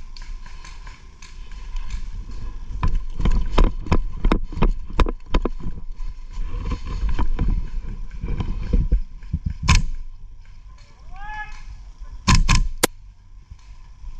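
Airsoft guns firing single sharp shots: a quick run of about eight shots a few seconds in, one more shot near the middle, and a close pair near the end, over a low rumble of wind and movement on the microphone.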